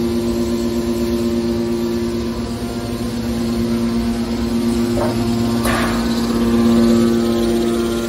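Hydraulic scrap-metal baler's power unit, an electric motor driving the hydraulic pump, running with a steady two-tone hum over a low rumble. Two short knocks come a little after the middle.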